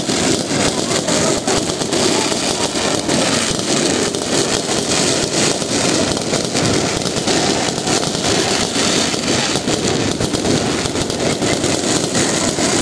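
Aerial fireworks display: a dense, unbroken barrage of bangs and crackling from many shells bursting together.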